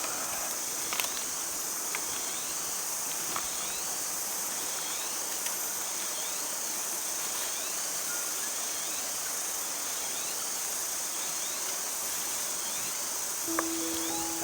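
Steady high-pitched insect chorus from the forest, with short rising chirps recurring over it and a few light clicks. Music comes in near the end.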